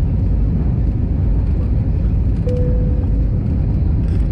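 Cabin noise of an Airbus A320 climbing out just after takeoff, heard from a window seat: a steady loud rumble of the jet engines at takeoff thrust with rushing air. A brief steady tone sounds about two and a half seconds in.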